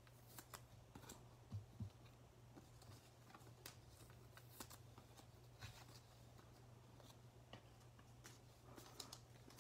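Near silence with faint, scattered taps and rustles of trading cards being handled and laid down on a tabletop.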